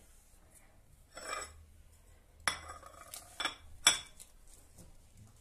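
Dishes and glassware being handled on a hard countertop: a short sliding scrape about a second in, then a handful of sharp clinks and knocks, the loudest about four seconds in.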